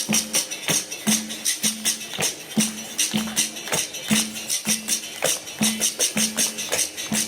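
Capoeira bateria music: berimbau notes in a repeating toque, with pandeiro jingles and a shaker sounding on the beats.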